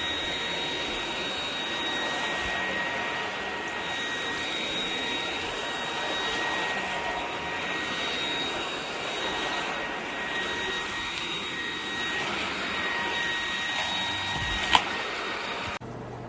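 EUREKA RapidClean Pro cordless stick vacuum running steadily, its motor giving a high whine over the rush of air. A sharp click comes near the end, and the motor cuts off suddenly just after it.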